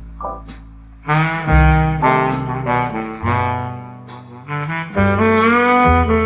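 Jazz with a horn melody, brass or saxophone, over sustained bass notes, the notes changing about once a second.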